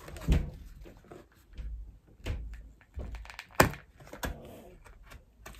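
Holes being poked through a thin cardboard craft template pressed against a tabletop: a handful of dull knocks and thumps with light paper rustling between, the sharpest knock about three and a half seconds in.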